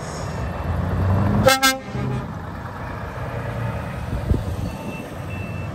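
A lorry's horn giving one short blast about a second and a half in, over the low, steady running of lorry engines pulling away. A dull thump comes later.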